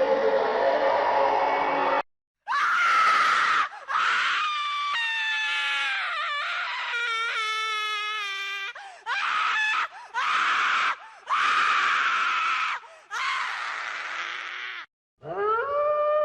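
A person screaming in agony: a run of long, strained screams broken by short pauses, after a dense hellish scream that cuts off about two seconds in. Near the end a wolf starts howling.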